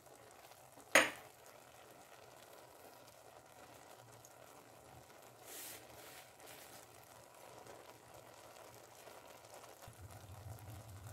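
Faint, steady hiss of the pot of sweet rice cooking on the stove, with one sharp knock about a second in. A low hum comes in near the end.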